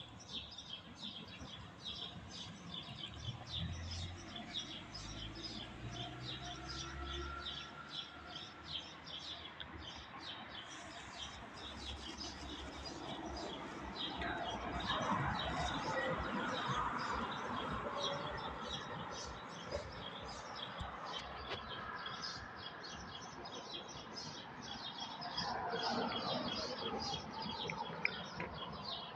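Small birds chirping continuously, with rapid, repeated short high chirps. A louder rushing noise swells up about halfway through and again near the end.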